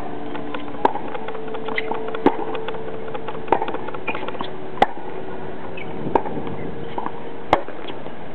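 Tennis balls being struck with rackets in a baseline rally on an outdoor hard court: a sharp pop a little more than once a second, with softer ball bounces and shoe scuffs between the hits.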